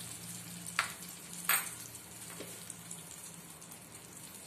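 Water with onion, tomato and spices in a kadhai on a gas burner, hissing and sizzling steadily as it heats toward the boil. Two sharp pops come about a second and a second and a half in.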